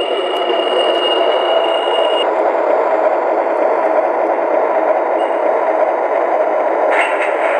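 O scale MTH RailKing R-21 Redbird subway model train running past on its track: a steady rolling and motor rumble. A high steady whine stops about two seconds in, and quick clicking comes in near the end.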